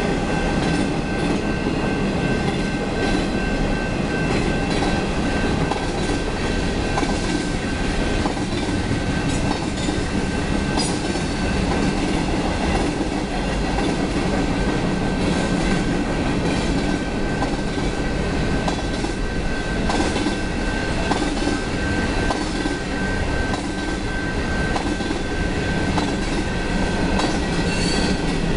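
Train cars rolling through a grade crossing: a steady rumble of wheels on rail with faint clicks over the rail joints and a thin, steady high-pitched wheel squeal above it.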